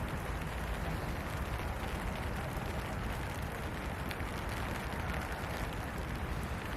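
Steady rain falling, an even, unbroken patter and hiss with a heavy low rumble underneath.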